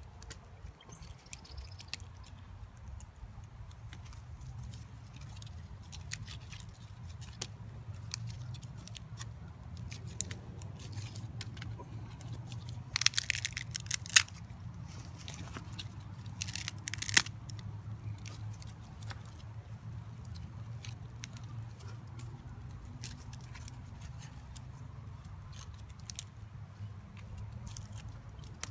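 Hands stuffing pine pitch and bark into the centre of a bundle of upright green-wood stakes, making scattered crackles and clicks of bark and dry leaves, loudest in two short bursts about 13 and 17 seconds in, over a low steady rumble.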